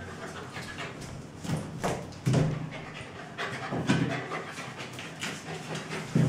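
Two dogs play-fighting, giving short, low dog vocalisations about six times.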